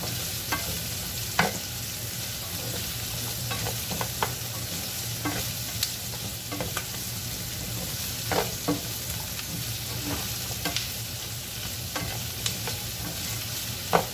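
Onion and carrot pieces sizzling in hot oil in a frying pan as a spatula stirs them, with a steady hiss and irregular scrapes and knocks of the spatula against the pan.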